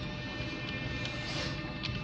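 Model train, an ALP-45DP locomotive with double-deck coaches, running past on the layout track: a steady hum and rolling rumble with a few light clicks from the wheels on the rails.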